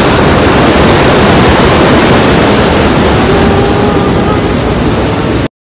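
The Rhine Falls at close range: a loud, steady rush of heavy falling water, with a voice faint beneath it. The sound cuts off suddenly near the end.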